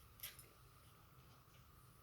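Near silence with a low steady hum, broken by one brief faint scratch or click of small handling about a quarter second in.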